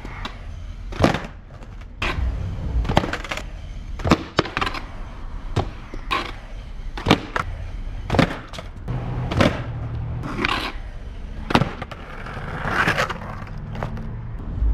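Skateboard on concrete: the wheels roll with a low rumble, broken by a dozen or so sharp clacks of tail pops, landings and the board slapping down, roughly one a second.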